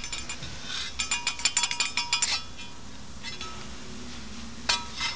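Steel hibachi spatulas clinking against each other and the flat-top griddle: a fast run of ringing metal taps about a second in, lasting just over a second, then two sharp clanks near the end.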